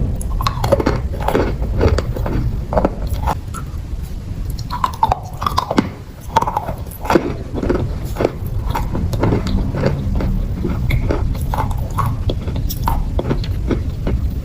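A person biting and chewing wet chalk: irregular crunching bites and chews, with a short lull about six seconds in, over a steady low rumble.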